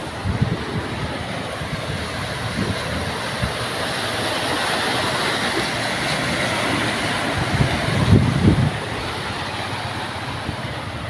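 An SUV driving through shin-deep floodwater, its tyres throwing up a rushing spray that swells as it passes. A few loud low rumbles come about eight seconds in.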